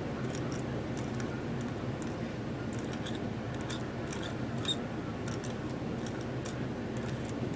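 Metal quill-pen nib scratching and ticking on a glass sheet in short strokes as fine enamel lines are drawn, over a steady low room hum.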